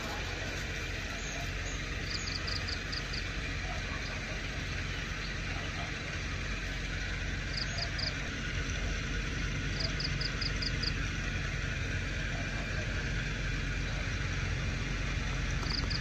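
Steady outdoor background with a low hum, broken four times by short runs of rapid high-pitched clicking calls, five or six clicks each, like a small frog or insect calling.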